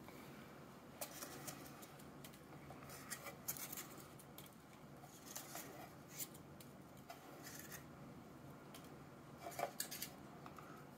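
Faint, scattered small clicks, scrapes and rustles of fingers pulling foam packing peanuts out of a small clear plastic ant outworld and handling the plastic box.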